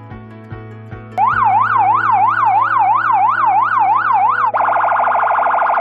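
Electronic 100-watt police siren switching on about a second in with a yelp tone, fast rising and falling sweeps about three a second. Near the end it changes abruptly to a much faster pulsing warble. Background music plays underneath.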